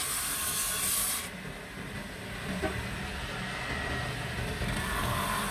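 Brake shoe lining held against an abrasive disc spun by a drill press, giving a steady grinding hiss over the motor's hum. The sharper, higher grinding cuts off suddenly about a second in, leaving a lighter rubbing hiss.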